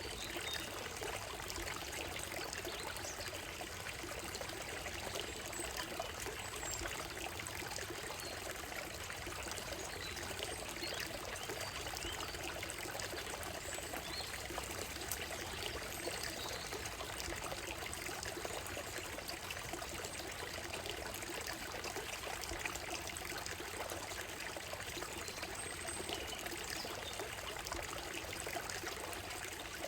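Shallow stream running steadily over stones on a gravel bed, with a few faint bird chirps above it.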